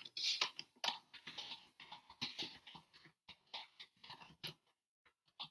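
Typing on a computer keyboard: an uneven run of light key clicks, with a sharper click right at the start.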